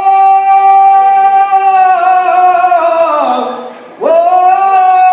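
A man singing unaccompanied: one long held note that slides down and fades about three seconds in, then a second held note beginning about four seconds in.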